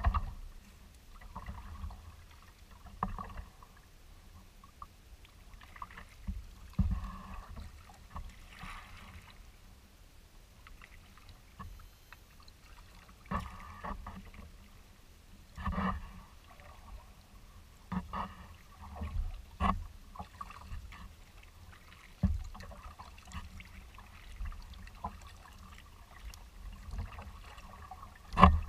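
Kayak paddling: the paddle blades dipping and splashing in the water at an irregular pace, with water trickling off the blades and a few sharp knocks.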